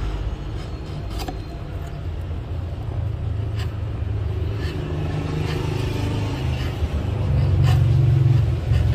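Steady low rumble, like an engine running nearby, with a few sharp clicks of a knife paring the cut root ends of a wild apricot stump.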